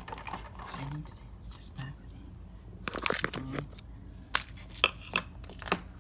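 Small plastic toy figures knocking and clicking against a plastic playset as they are handled, with several sharp clicks in the second half.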